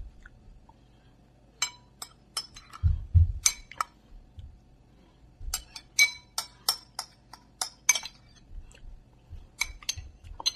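Metal spoon clinking and scraping against a ceramic bowl in quick runs of taps as the bowl is scraped empty, with a dull knock about three seconds in.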